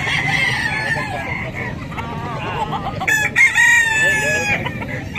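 Gamecock rooster crowing. The loudest crow comes about three seconds in and lasts about a second and a half, over other roosters calling in the background.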